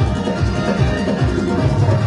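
Instrumental music with a beat and a strong bass line, and no singing.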